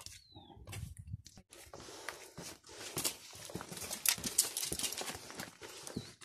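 Footsteps of several people walking on a gravelly, rocky dirt path, an irregular run of crunching steps. A brief high, falling chirp sounds right at the start.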